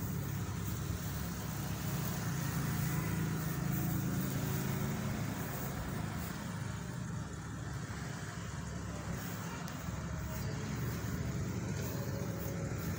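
Steady low rumble of an engine running, even in level throughout.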